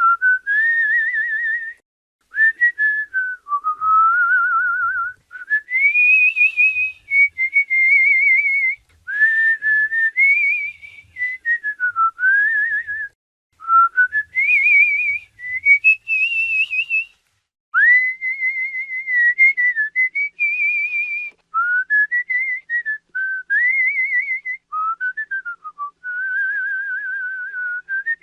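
A person whistling a free, wandering melody with the lips, in phrases of one to three seconds broken by short pauses, the pitch sliding up and down with a fast vibrato on held notes.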